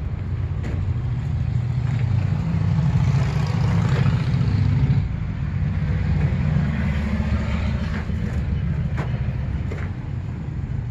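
A gas engine running steadily with a low rumble, building a little about two seconds in and easing off again after about five seconds.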